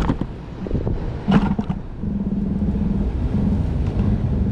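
Wind rumbling on the microphone, with a few knocks as the camera is handled. A low hum starts about a second in and continues, broken up.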